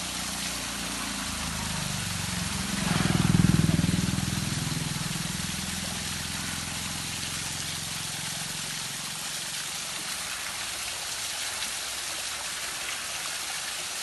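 A small waterfall splashing steadily onto rocks. A motor vehicle's engine swells as it passes, loudest about three and a half seconds in, then fades away.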